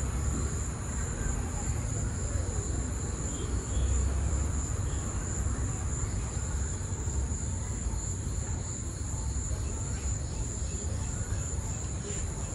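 Insects trilling steadily in one unbroken high-pitched tone, with a low rumble underneath.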